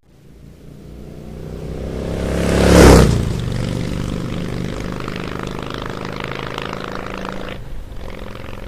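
A vehicle engine running, swelling in loudness to a rushing peak about three seconds in, then running steadily.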